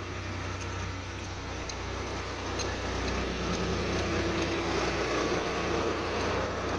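Steady vehicle noise with a low hum, growing a little louder partway through, with a few faint ticks.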